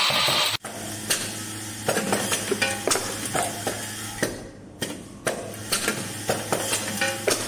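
Automatic wooden clothespin and spring assembling machine running: a steady hum from its vibratory bowl feeder under irregular sharp clacks of the assembly station working, about two or three a second.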